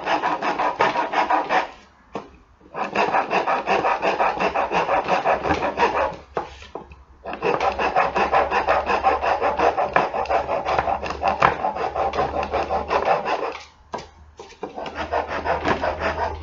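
Hand rasp filing wood in quick back-and-forth strokes, rounding a lampstand part. The rasping comes in four runs broken by short pauses.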